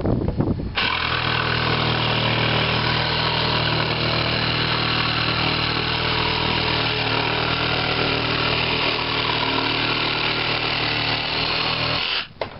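Milwaukee 2645-20 18-volt cordless jigsaw cutting across a wooden board. After a few handling knocks, the saw starts about a second in, runs steadily through the cut, and stops abruptly near the end.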